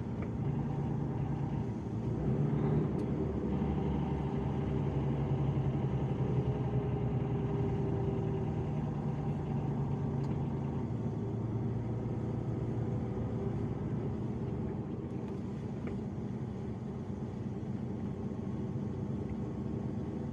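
Truck engine running steadily under road noise while driving, its low drone shifting in pitch a few times.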